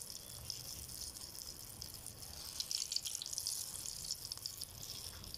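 Egg-battered kebab patty shallow-frying in hot oil in a pan: a steady high sizzle with fine crackles.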